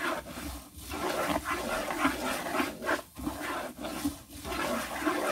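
Thin vermicelli frying in oil and butter in a pan, sizzling as a wooden spoon stirs and scrapes it around the pan, toasting it toward golden brown.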